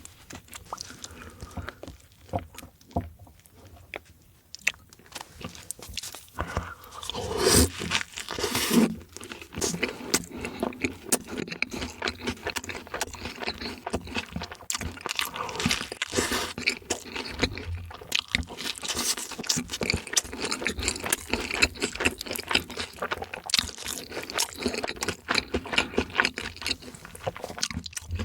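A person eating close to the microphone: crunchy bites and wet chewing. It is quieter for the first few seconds, then loud crunching starts about seven seconds in and runs on in an irregular crackle.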